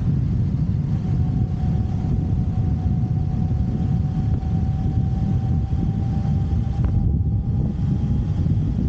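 Motorcycle running at road speed, with a dense low rumble of engine and wind on the microphone and a thin steady whine that rises slightly in pitch.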